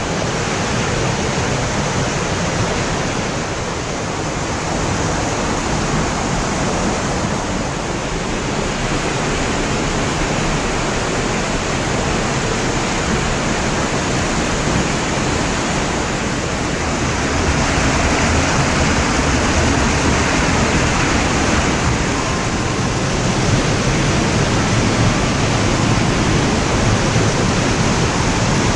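Mountain stream pouring over rocks in small waterfalls and cascades, a loud, steady rush of water that grows a little louder about two-thirds of the way through.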